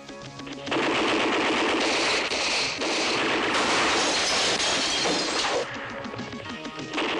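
Bursts of machine-gun fire in a movie shootout, over a music score. It turns loud about a second in and stays heavy until a short lull near the end.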